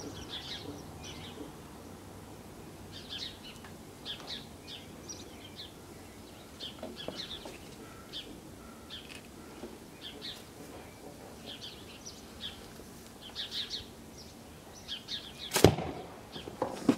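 Small birds chirping on and off, then, near the end, a single sharp crack from a heavy-banded slingshot firing a 75-caliber lead ball.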